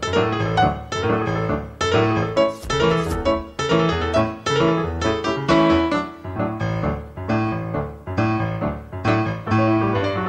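Background keyboard music, chords struck in a steady rhythm.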